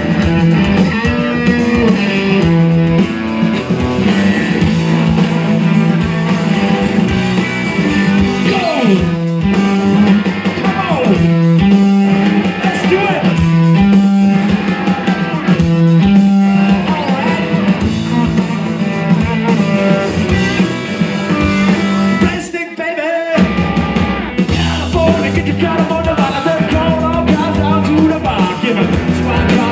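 Live rock band playing loud, raw blues-punk on two electric guitars and drums, with short stop-time breaks in the riff. The band cuts out for under a second about three quarters of the way through, then crashes back in, with the singer's vocal coming in near the end.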